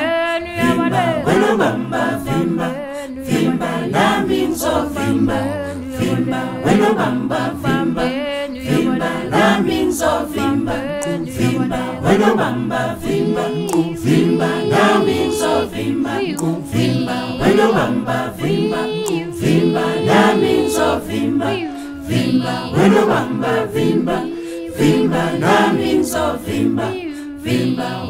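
Background music: a women's a cappella choir singing in close harmony over a rhythmic low vocal part.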